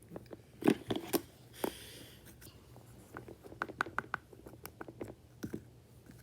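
Sand slime being squished and pressed by hand into a small plastic mould: scattered soft taps, clicks and squishes, with a short rustle about a second and a half in.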